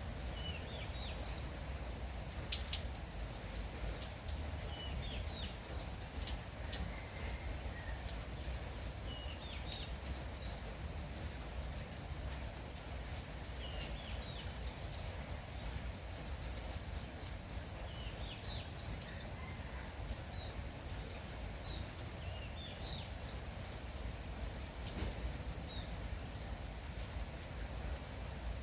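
Light rain falling steadily, with individual drops ticking sharply close by. Over it a bird repeats short phrases of quick rising chirps every few seconds.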